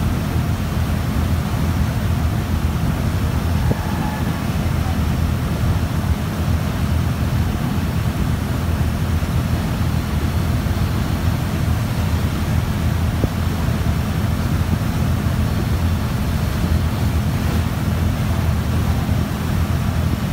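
Boat engine running steadily, a low drone, with wind buffeting the microphone.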